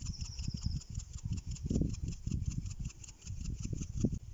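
Metal salt shaker being shaken over a raw cut of meat, salt grains pattering in a quick, even rattle of about eight shakes a second, over a low rumble.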